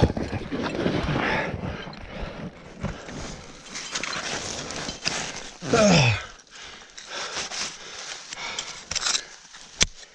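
Ice axes being planted into snow and frozen turf, with crampons kicking and scraping on snow and rock: irregular dull knocks and scuffs. A short falling pitched sound comes about six seconds in, and there are a few sharp metallic clicks near the end.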